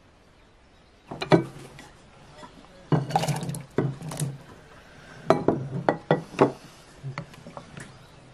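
Wooden spoon and a clay bowl knocking and scraping against a glass mixing bowl as food is scraped in and stirred: a series of clinks and taps in a few clusters, the first about a second in.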